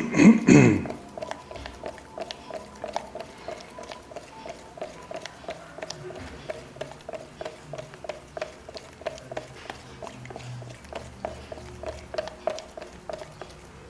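A flat wooden stirring stick working a thick gel mix in a plastic measuring jug, clicking and scraping against the jug's sides in a steady rhythm of about three strokes a second. A short, loud sound with falling pitch opens it.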